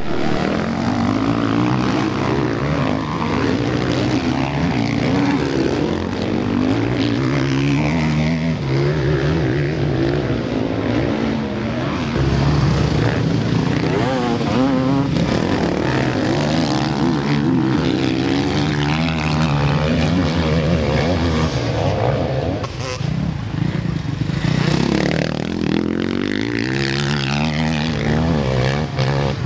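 Several motocross bikes racing past, their single-cylinder engines revving up and down with each throttle change, overlapping and rising and falling in pitch throughout.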